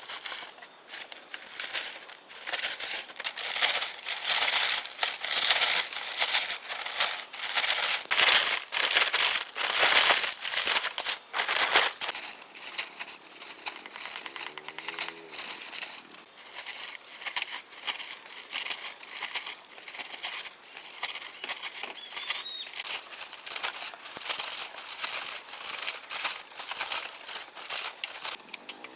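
Dense, irregular rustling and crackling that runs on without a break.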